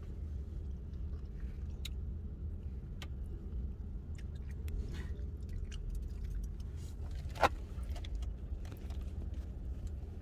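Steady low hum of a vehicle's engine idling, heard from inside the cabin, with faint small clicks and rustles and one sharp click about seven seconds in.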